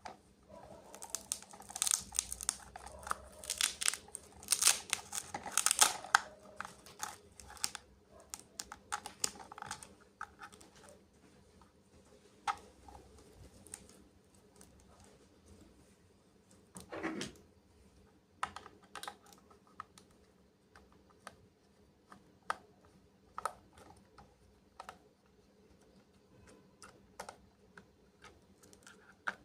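Plastic toy packaging being handled and opened: a dense run of crinkling, tearing and clicking for the first several seconds, then scattered light clicks and taps, with one duller knock about two-thirds of the way through.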